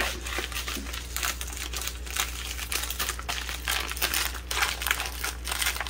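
Crinkling and rustling of a small sealed packet being handled and turned over in the hands, a run of irregular crackles.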